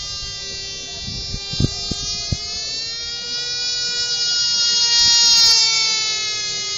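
Tiny Cox .010 glow-plug model airplane engine running flat out: a high-pitched buzzing whine whose pitch and loudness slowly swell and fade as the plane flies around. It is loudest about five seconds in, and a few short knocks come near the start.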